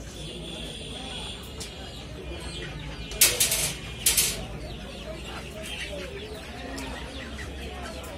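Live domestic chickens clucking in a crowded basket, with two sudden loud noisy bursts about three and four seconds in.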